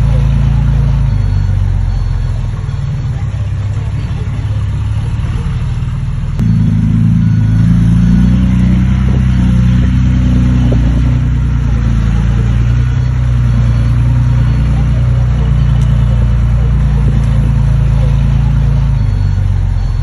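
Heavy diesel engine of earthmoving machinery running steadily, with a deep low hum; it gets abruptly louder and changes pitch about six seconds in.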